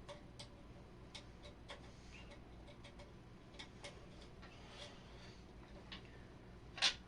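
Faint, irregularly spaced clicks and light ticks, with one louder click near the end; no horn is sounding.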